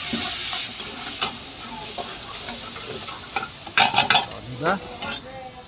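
Broth sizzling with a hiss of steam in a hot wok, loudest in the first second, while a metal ladle and tongs scrape and stir. About four seconds in come several sharp metal clanks as a steel bowl tips vegetables into the wok.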